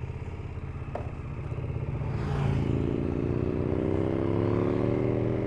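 KTM 1290 Super Duke GT's V-twin engine running at idle, with a click about a second in, then pulling away, its revs climbing steadily from about two seconds in.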